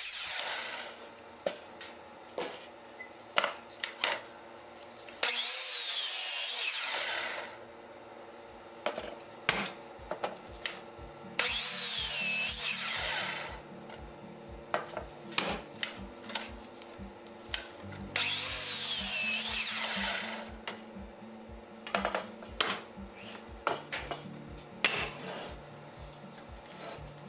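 Electric miter saw crosscutting thick red oak spoke blanks: three cuts of about two seconds each, roughly six seconds apart, the motor's whine dipping and recovering as the blade bites through, with the end of another cut right at the start. Between cuts, wooden knocks and clatter as the boards are moved and set on the saw.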